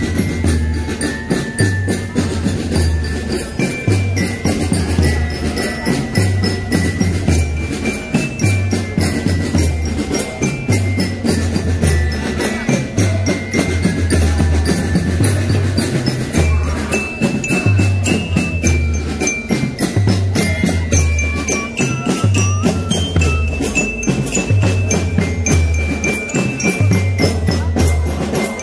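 A drum band plays: fast, dense drumming over a repeating low bass-drum pattern, with a high bell-like melody stepping between a few notes above it.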